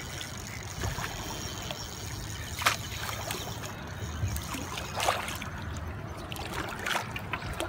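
Water splashing and sloshing as a hooked channel catfish thrashes at the surface beside a boat, with a couple of sharper splashes about two and a half and five seconds in, over a low steady rumble.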